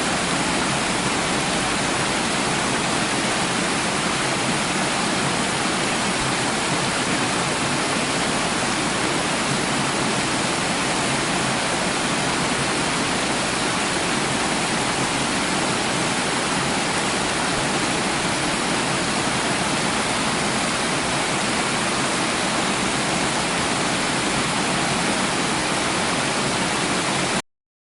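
Waterfall rushing: a steady, even roar of falling water that cuts off abruptly near the end.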